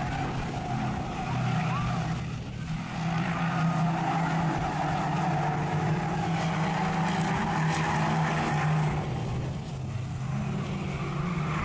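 Engines of several small Mini-bodied oval race cars running hard as they lap the track, a steady drone, with some tyre squeal.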